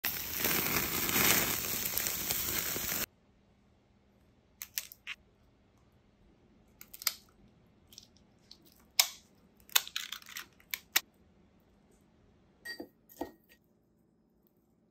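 Lobster tails on skewers sizzling over a charcoal fire, an even hiss that cuts off suddenly about three seconds in. Then scattered sharp cracks and clicks of raw lobster tail shells being handled and skewered on wooden sticks, about a dozen in irregular clusters.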